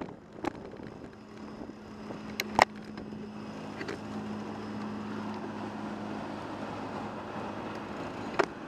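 Road traffic heard from a bicycle stopped at an intersection: a steady engine hum from the cars close by, with a sharp click a little over two seconds in and another near the end.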